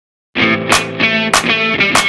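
Backing music starts about a third of a second in: sustained pitched chords with a steady beat, a sharp drum-like hit roughly every 0.6 seconds.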